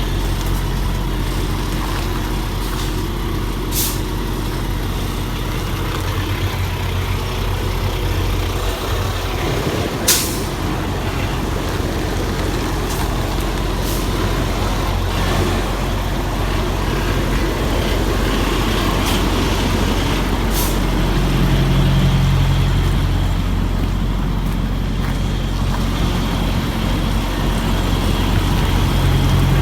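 Semi truck's diesel engine running steadily while the rig is backed, its note swelling about twenty-one seconds in and again near the end. Several short, sharp air-brake hisses cut through, the loudest about ten seconds in.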